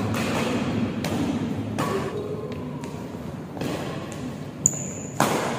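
Badminton rally: rackets hitting the shuttlecock with sharp hits roughly every two seconds, mixed with footfalls on the court. The loudest hit comes near the end, just after a brief high-pitched squeak.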